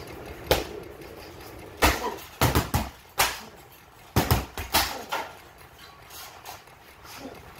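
A training stick striking a hanging heavy bag: about ten sharp whacks in quick, irregular clusters, the last about five seconds in.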